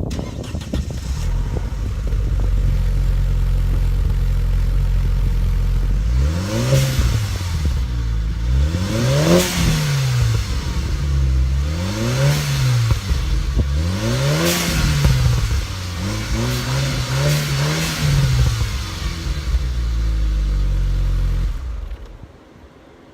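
Turbocharged Audi A4 Avant engine breathing through a Borla turbo-back exhaust, idling and then blipped through several revs, each rising and falling back. It settles to idle again and cuts off near the end.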